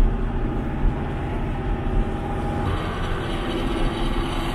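Converted camper truck's engine running under way, heard from inside the cab as a steady low drone. About two and a half seconds in, the sound turns brighter, with more hiss in the upper range.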